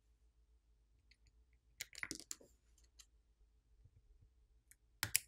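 Small hard clicks and taps of a plastic pry pick and small parts on a smartphone's frame as the screen's flex-cable connector is worked loose. There is a cluster of clicks about two seconds in, a few faint ticks, and one sharp click near the end.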